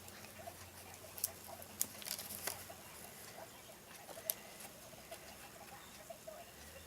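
Faint, scattered small clicks and scratchy ticking from handling the small parts of an iPhone 5s screen assembly while the home button is pushed out, with a few sharper clicks.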